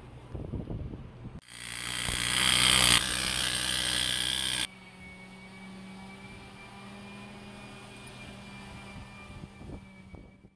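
Loud, noisy machine sound in a workshop that builds up over about a second and a half, holds briefly, then cuts off suddenly. A low steady hum with a faint high whine runs underneath.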